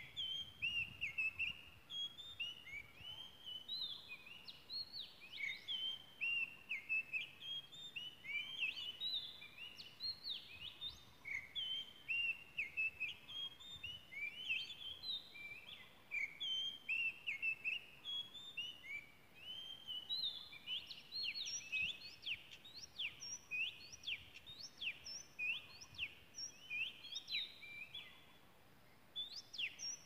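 Oriental magpie-robin singing: a long, unbroken run of varied clear whistled notes and quick pitch glides, pausing briefly near the end before resuming.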